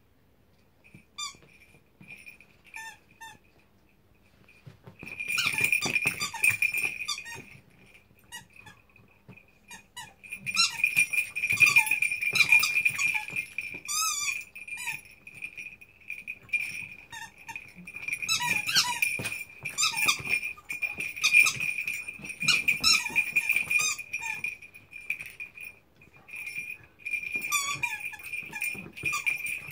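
A cocker spaniel chewing a squeaky rubber toy, setting off runs of rapid high squeaks with short gaps between them.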